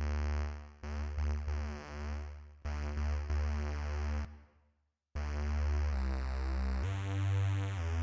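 Charlatan softsynth playing electronic music: a heavy bass synth line in choppy stop-start phrases, which fades to silence about four seconds in. Sustained synth chords then enter, with the bass stepping up in pitch twice.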